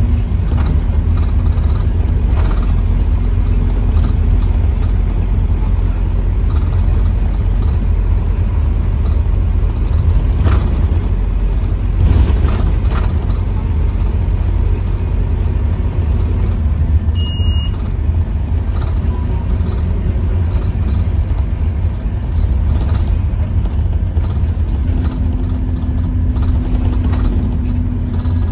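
Scania OmniLink K230UB single-deck bus heard from inside the saloon: its diesel engine and ZF automatic gearbox running as a steady low drone, mixed with road noise and a few knocks and rattles. A short high beep sounds about 17 seconds in, and a steady hum comes in near the end.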